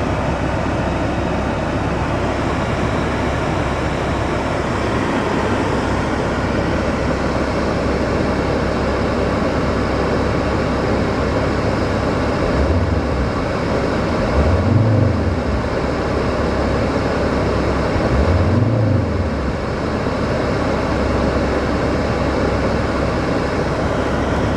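Mercedes-Benz W211 running with a steady mechanical noise, recorded for the knock it has developed. Three brief low swells rise and fall near the middle.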